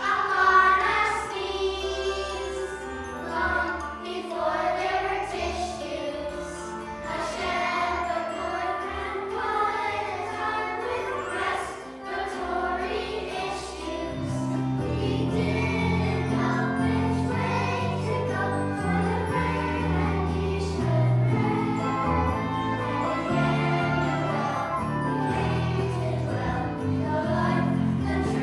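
A choir singing a Christmas song with instrumental accompaniment; a deeper bass line comes in about halfway through.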